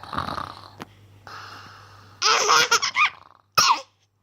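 A baby laughing in short, high, bursting peals, loudest about two seconds in, after a breathy huff at the start.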